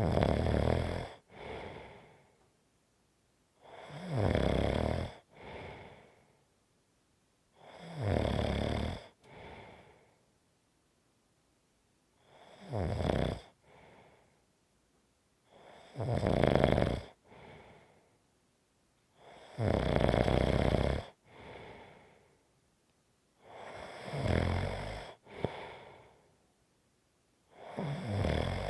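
A person snoring steadily, about one snore every four seconds. Each loud snore is followed by a quieter, shorter one, with quiet pauses between.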